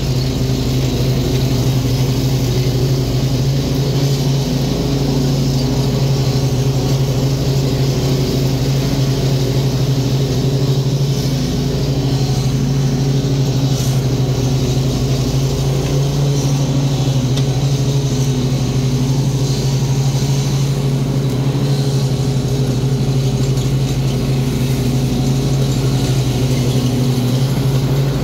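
Zero-turn riding mower's engine running steadily under load while mowing, a constant low drone with no change in speed.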